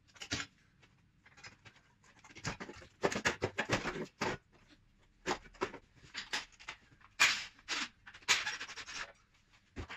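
Irregular scraping, knocking and rattling of a diesel particulate filter being worked down past the subframe by hand, in uneven bursts with the loudest clusters around three and eight seconds in.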